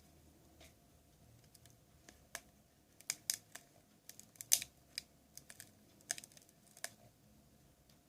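Irregular small clicks and taps from a tablet's parts and a tool being handled while it is taken apart. They start about two seconds in and are loudest near the middle.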